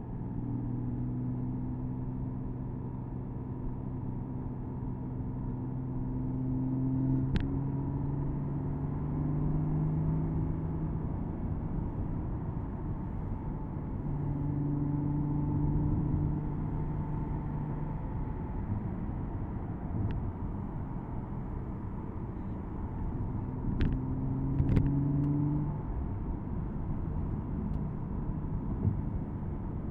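Porsche Boxster S 987.2's 3.4-litre flat-six engine pulling through the gears under light throttle, heard from the cabin over steady road and tyre noise; its note climbs in pitch through several stretches. A few sharp clicks stand out, one about seven seconds in and two close together near the end.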